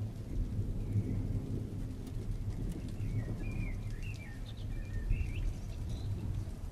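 Low, continuous rumble of distant thunder rolling. A small bird chirps a run of short notes in the middle.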